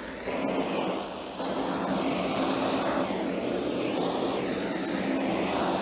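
Handheld gas torch flame running with a steady rushing hiss, held over curing epoxy to pop the air bubbles rising to the surface. It gets louder about a second and a half in and then holds steady.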